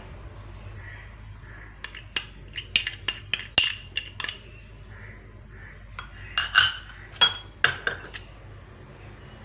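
Small cut-glass bowls and a metal spoon clinking as ingredients are tipped into a bowl of mayonnaise: a quick run of sharp clinks about two seconds in, then a second cluster about six seconds in.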